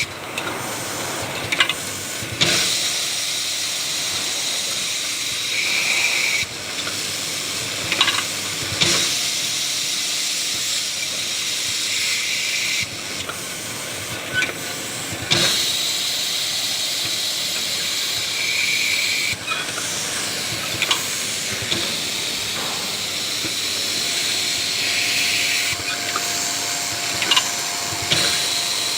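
Automatic drilling and tapping machine with auto-feeder running its work cycle: a steady hiss, with clunks, clicks and short bursts of noise that repeat about every six and a half seconds.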